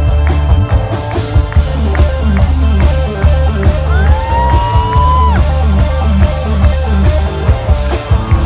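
A rock band playing live through a PA: driving electric bass, drums and electric guitar. About four seconds in, a high note slides up and is held for about a second.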